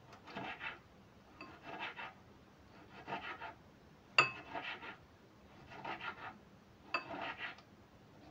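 Kitchen knife slicing a tomato: rasping cutting strokes about every one and a half seconds, with a sharp click about four seconds in, the loudest sound, and a smaller one near the end.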